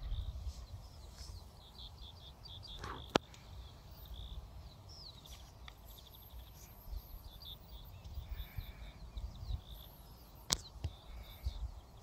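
Quiet outdoor ambience of small birds chirping and twittering, over a low uneven rumble, with two sharp clicks, about three seconds in and near the end.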